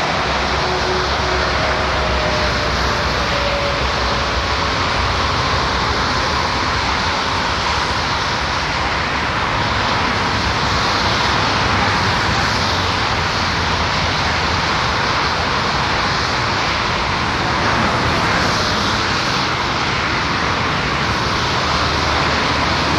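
Steady roar of motorway traffic, with a passing vehicle's tone falling slowly in the first few seconds.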